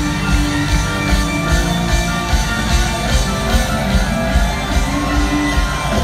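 Loud live rock band playing: electric guitars hold sustained notes over steady drums and bass.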